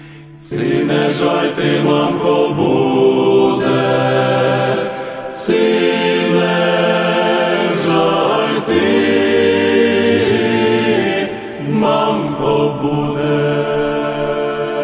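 Chanted vocal music: voices holding long notes over a sustained drone, the chord shifting every few seconds.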